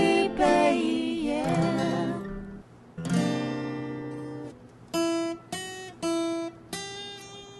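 Acoustic guitars strumming the end of a song. A wavering sung note is held over the guitars for the first two seconds. About three seconds in, a strummed chord rings out. Then come three short, stopped chords in quick succession and a final chord left to ring and fade.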